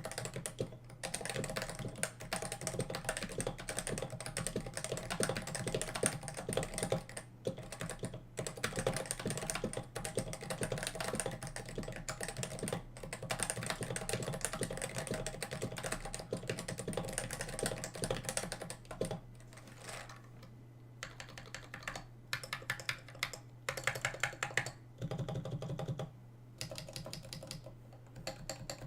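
Fast typing on a Topre-switch mechanical keyboard fitted with GMK keycaps, a dense run of keystrokes that thins out to scattered key presses about two-thirds of the way through. A faint steady hum lies underneath.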